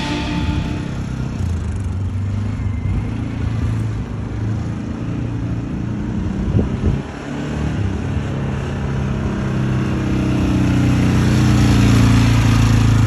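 Loncin X-Wolf 550L UTV's 550cc liquid-cooled engine running as the machine is driven, dipping briefly about halfway through, then rising in pitch and getting louder over the last few seconds as it accelerates.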